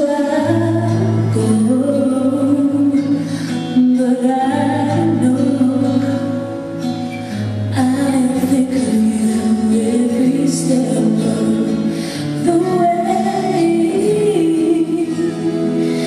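Song with a female lead singer over held bass notes, played over loudspeakers for a dance routine.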